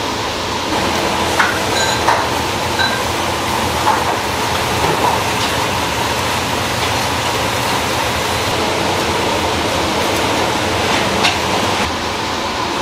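Kitchen knife slicing grilled eel and knocking against a wooden cutting board, several short knocks in the first few seconds and one more near the end, over a loud, steady rushing background noise.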